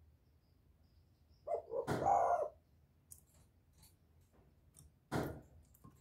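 A caged spotted dove gives a short low coo about a second and a half in. Sharp knocks and light ticks come from the bird shifting in its wire cage, the loudest knock about five seconds in.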